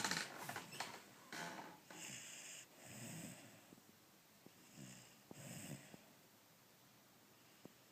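A person snoring: a run of rasping, wheezy breaths in and out over the first six seconds.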